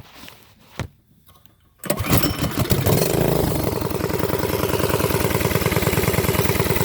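Harbor Freight Predator 212 single-cylinder four-stroke engine, fitted with a small cam and an aftermarket pipe, starting about two seconds in, revving briefly, then settling into a steady idle.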